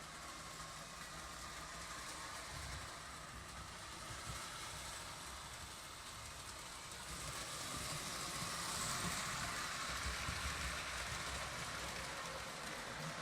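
Postwar Lionel 2037 O gauge steam locomotive pulling its cars around the metal track: a steady motor hum and wheel rumble that grows louder about seven seconds in as the train comes closer, then eases off.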